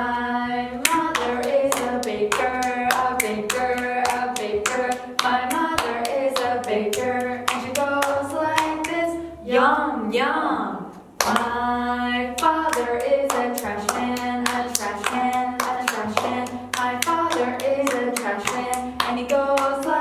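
Two women chanting a hand-clapping rhyme while clapping their own and each other's palms in a steady rhythm. A little before halfway the claps stop briefly under a sliding sung call, then the clapping resumes.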